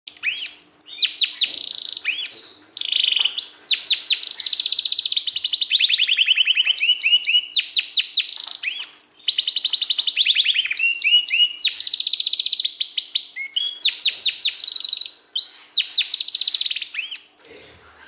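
Yorkshire canary singing a long, nearly unbroken song of fast trills: rapid strings of repeated high notes, each phrase shifting to a new pitch every second or two.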